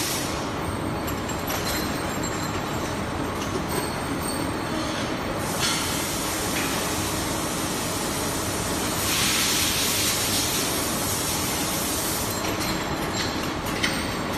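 Metal band saw running: a steady mechanical noise with a hissing, grinding high end, which grows louder and brighter for a few seconds in the middle.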